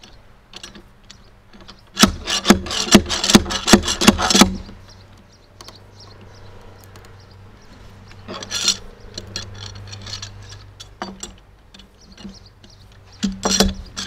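Nail-puller pliers' metal jaws digging and scraping into weathered cedar to bite under an embedded nail. A quick run of sharp scraping clicks begins about two seconds in and lasts a couple of seconds, with shorter bursts near the middle and again near the end.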